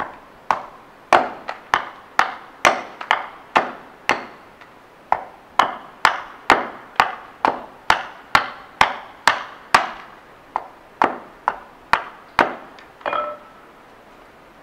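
Hatchet hewing a wooden spoon blank on a chopping stump: about two dozen sharp chops at roughly two a second, with two brief pauses, as the blank is refined toward shape. Near the end the chopping stops and a single knock with a short ring follows.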